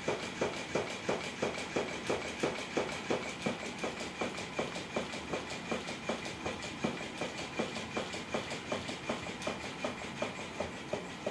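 Electric flopping-fish cat toy running: a steady high motor whine with a rhythmic clatter about three times a second as the tail flaps.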